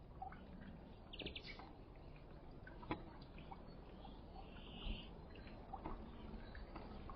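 Small songbirds at a feeder chirping faintly: scattered short calls, a brief buzzy trill about a second in, and a sharp click about three seconds in.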